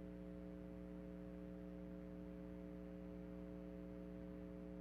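Faint steady electrical hum from the public-address loudspeakers: a buzz of several even tones with no other sound on top.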